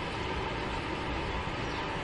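Steady outdoor street noise: a continuous low rumble of traffic with an even hiss, no single event standing out.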